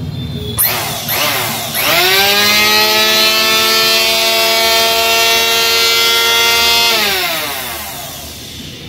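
Hitachi F-20 electric hand planer's motor test-run after a bearing change: switched on with a brief first burst that dips, then run up to a steady high whine. It is switched off about seven seconds in and winds down with falling pitch.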